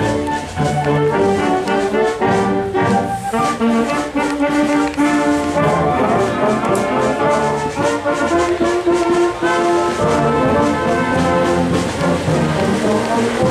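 Brass ensemble music playing, a run of held notes changing from one to the next.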